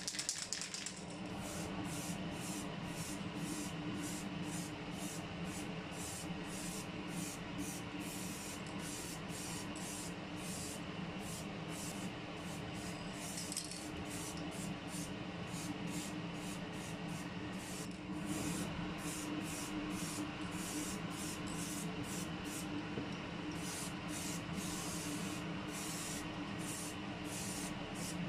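Aerosol spray-paint can hissing steadily as it sprays in continuous passes.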